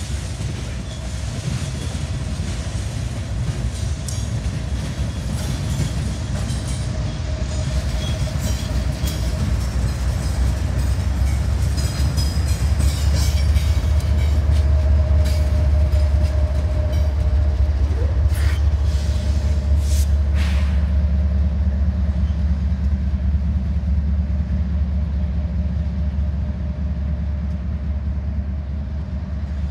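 Diesel freight locomotives, an Iowa Interstate unit and Norfolk Southern 9918, passing close by with a heavy low engine rumble. The rumble builds to its loudest about halfway through and eases off toward the end, with a few sharp clicks about two-thirds of the way in.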